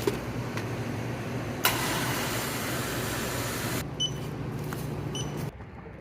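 Shop ambience: a steady low hum, a couple of seconds of loud rushing noise, then two short electronic beeps about a second apart.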